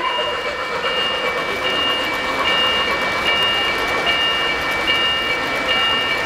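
O-gauge three-rail model freight cars rolling past close by, a steady rumble and rattle of wheels on the track. A high beep repeats steadily, a little more than once a second.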